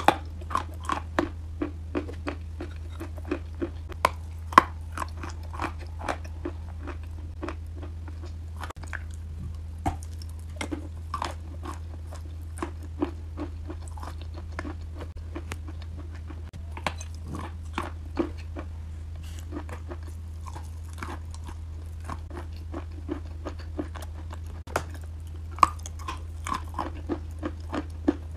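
Chalk coated in creamy grey clay paste being bitten and chewed: irregular crunches several times a second, with a few louder snaps. A steady low hum runs underneath.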